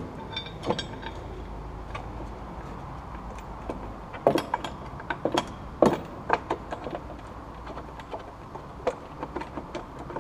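Hands flexing and handling a car's plastic rear bumper cover and liner: irregular clicks, taps and rattles, with a few sharper knocks in the middle, over a low steady hum.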